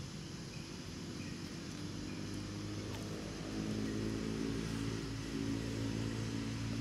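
Steady low drone of an unseen motor engine, growing louder about halfway through.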